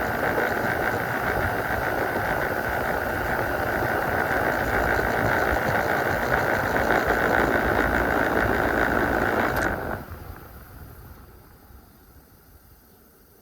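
Central air conditioner outdoor condensing unit, compressor and condenser fan, running steadily and then shutting off about ten seconds in; the noise drops sharply and winds down over the next couple of seconds.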